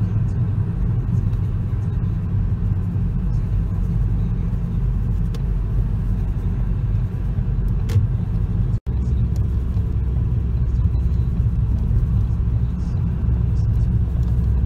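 Steady low rumble of engine and tyre noise inside a moving car's cabin, cut off for a split second about nine seconds in.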